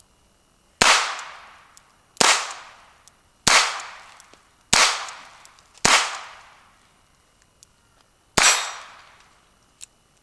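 Six shots from an H&R Model 999 .22 revolver. Five come about a second apart, then there is a longer pause before the last. Each is a sharp crack with an echo that trails off.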